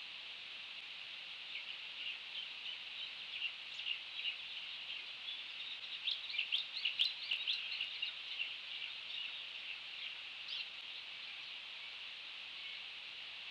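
Birds chirping in a rapid run of short, high chirps, loudest about halfway through, over a steady high-pitched background hiss.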